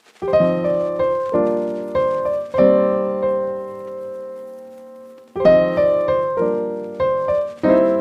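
Piano music: chords struck one after another and left to ring out, with one chord fading for nearly three seconds in the middle before the playing resumes.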